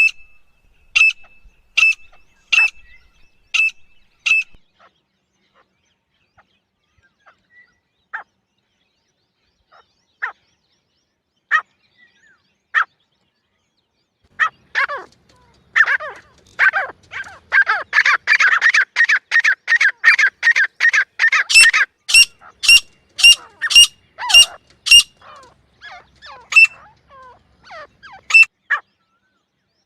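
Grey francolin calling: sharp, piercing notes repeated about twice a second, then a few scattered notes. A fast chattering run follows and builds into a series of louder, higher ringing notes.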